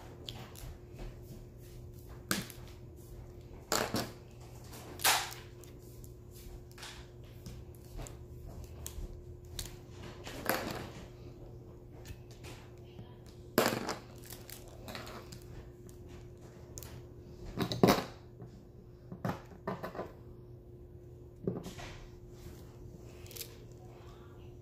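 Diamond painting in progress: a drill pen picks resin drills from a plastic tray and taps them onto the canvas, giving scattered small plastic clicks and taps at irregular intervals, some louder than others. A steady faint hum runs underneath.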